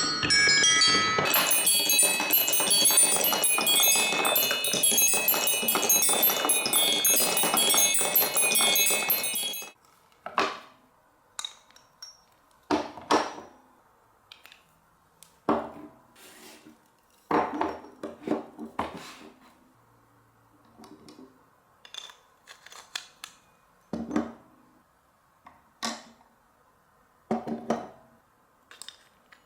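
Marbles running down a block marble run: for about ten seconds a dense stream of quick, ringing, high-pitched clinks and chimes, which stops abruptly. After that, single marbles knock and clack against the blocks every second or two.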